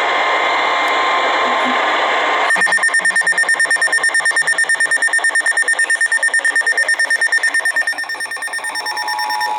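Emergency alert tone. Steady static hiss gives way about two and a half seconds in to a rapidly pulsing electronic alarm of about ten beeps a second, which fades after about five seconds. Near the end a steady alert tone begins, announcing a new severe thunderstorm warning.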